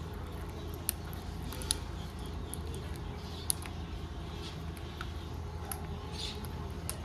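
Green parrot giving faint, short high chirps, with a few sharp clicks in the first half, over a steady low hum.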